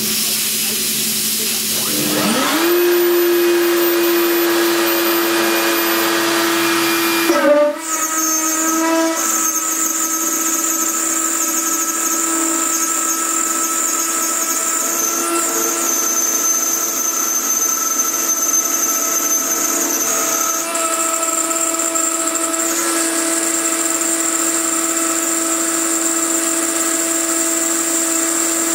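CNC router spindle spinning up about two seconds in to a steady high whine, then an end mill cutting into a 10 mm aluminium plate from about seven seconds in and milling steadily. A steady hiss from the coolant spray nozzle runs underneath.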